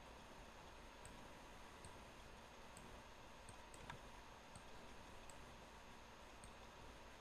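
Near silence with a faint computer mouse click about four seconds in, over steady faint hiss and faint high ticks under a second apart.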